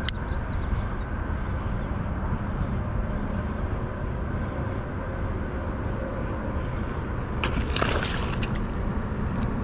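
Wind buffeting the microphone: a steady low rumble and rush of noise. A short patch of clicks and rustling comes about three-quarters of the way through.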